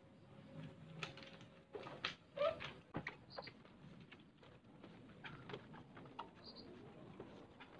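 Absorbent drying cloth wiping and rubbing over a Yamaha NMAX scooter's damp plastic bodywork: soft rustles and light scattered taps, with a short squeak about two and a half seconds in.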